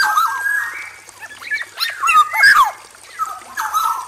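Male black-naped oriole singing: fluty whistled notes that bend up and down, in three short phrases.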